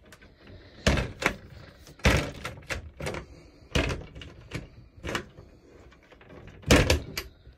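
Caravan wardrobe door being handled and pushed shut: a string of separate wooden knocks and clicks, the loudest a sharp double knock near the end.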